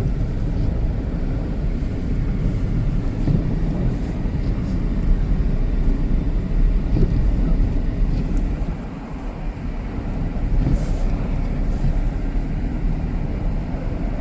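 Steady low road and engine rumble heard inside the cabin of a Ford Edge SUV driving on snow-covered roads. It eases off briefly a little past the middle.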